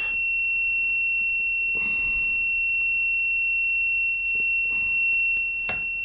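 Continuous high-pitched beep from a Fluke 324 clamp meter's continuity beeper, held on while its probes sit across the ECM blower motor's winding leads at about 5 ohms. The steady tone shows the winding circuit is continuous.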